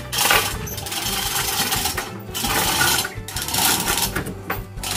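Manual chain hoist being hauled hand over hand: its chain rattles and clinks through the block in repeated pulls, with short breaks between strokes, as it lifts a loudspeaker box.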